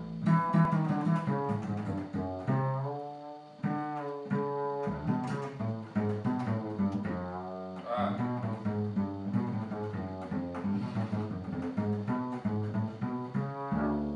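Double bass played pizzicato, a quick run of plucked notes with a few sliding pitches, as a finger warm-up.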